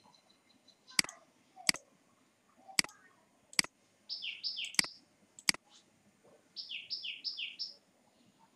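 About six sharp computer mouse clicks, with two short runs of high, quick chirps falling in pitch from a small bird, one near the middle and one towards the end.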